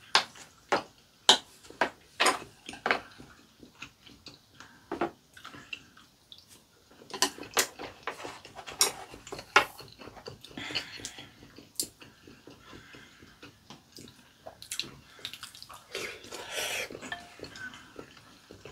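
Metal spoons and chopsticks clinking against ceramic soup bowls, sharp clicks scattered throughout, with wet slurping and chewing of sujebi soup in between.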